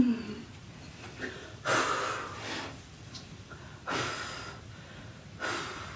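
Three sharp, noisy breaths, each under a second and a couple of seconds apart, drawn by a person in pain as a charcoal peel-off mask is pulled off her face.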